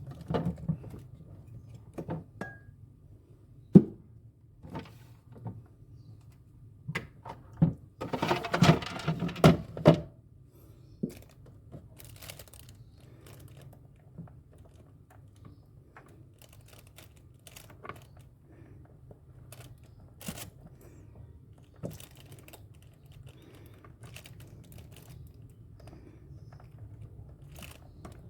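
Scattered knocks and clicks of hands and tools working on the plastic and metal parts of a refrigerator being taken apart, with a denser rattling, scraping spell about eight seconds in, over a low steady hum.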